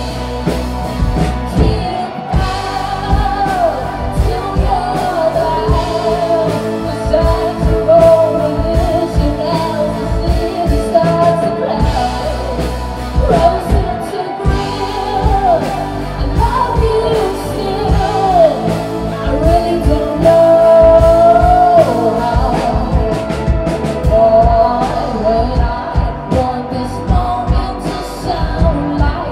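Live rock band playing loudly: electric guitar, bass and drums, with a lead melody that slides and bends in pitch over the top.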